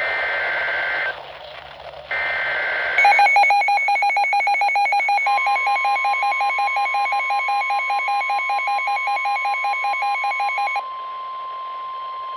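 NOAA Weather Radio alert tones. First comes the tail of the SAME header: a short, shrill burst of two-pitch digital data. Then a loud, rapidly pulsing electronic alarm beep runs for about eight seconds, and a couple of seconds in the steady 1050 Hz warning alarm tone joins it and carries on alone after the beeping stops.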